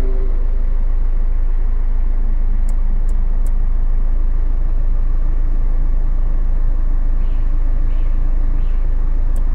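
Nissan Note 1.5 dCi four-cylinder turbodiesel idling steadily, heard from inside the cabin as a constant low hum. A few faint clicks come about three seconds in as the climate-control knobs are turned.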